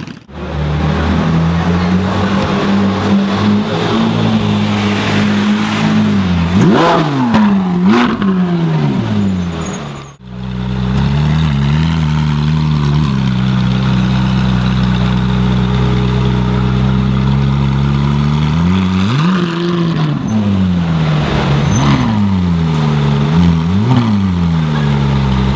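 Ferrari 458 Italia's 4.5-litre V8 idling with short throttle blips: two sharp revs in the first half and three more in the second, each rising and falling quickly back to idle.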